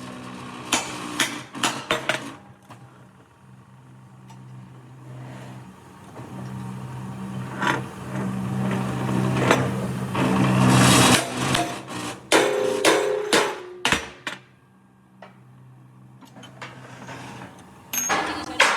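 Scattered sharp knocks and taps of hammer-like strikes over a steady motor hum. The hum swells louder with a rushing hiss for a few seconds in the middle.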